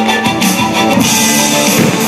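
Music with guitar, a song laid over the footage.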